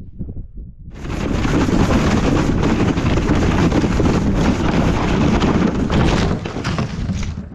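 Sled loaded with elk meat sliding fast down a snowy slope, heard from a camera riding on the sled: a loud, steady rush of snow scraping under the hull and air over the microphone. It starts about a second in and cuts off suddenly near the end.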